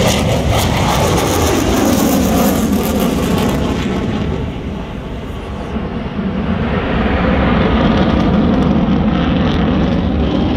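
F-16 fighter jet's engine making a loud, continuous rumble as it passes, its pitch falling in the first couple of seconds. The sound eases about five seconds in and then swells again as the jet moves away.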